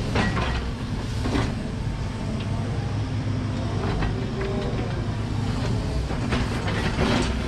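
Volvo 140 excavator's diesel engine running steadily while it scoops and moves topsoil, with a few short knocks along the way.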